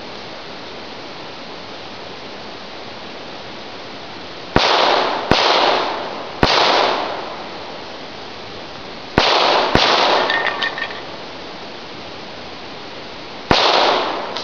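Six shots from a USFA ZiP .22 LR pistol, unevenly spaced, each with a short echoing tail: three in about two seconds, two close together about three seconds later, and a last one near the end. The pistol fires until its magazine runs empty. A steady hiss sits under the shots.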